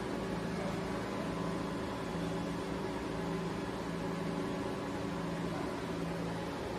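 Steady hum of a powered-up Biglia B 750 CNC lathe, with a low tone that breaks off briefly about once a second.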